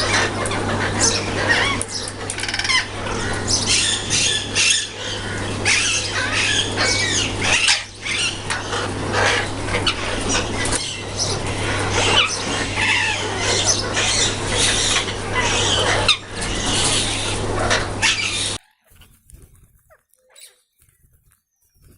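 Parrots chattering and squawking in a dense, continuous racket over a steady low hum. Both cut off abruptly about three-quarters of the way through, leaving near silence with a few faint ticks.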